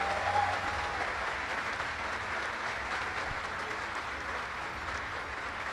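A large congregation applauding: dense, steady clapping that eases off slightly towards the end.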